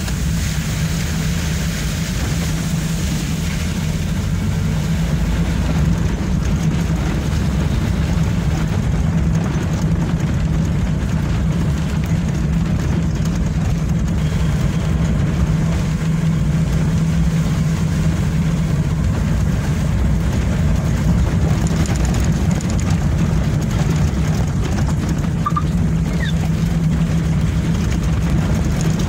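Engine of a moving vehicle running at a steady pace, with a constant low hum under rumbling road and wind noise, heard from on board.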